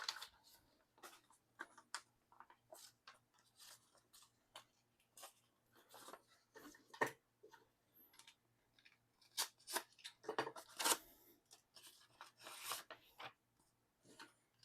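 Faint, irregular rustling, crinkling and small clicks of mailed photo-card packaging and plastic sleeves being handled and opened, a few louder ones about seven seconds in and again around ten to thirteen seconds.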